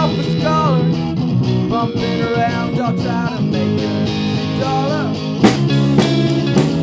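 Rock band playing a song: electric guitars with bending, gliding notes over bass and drums. A loud cymbal crash comes about five and a half seconds in, with the drums hitting harder after it.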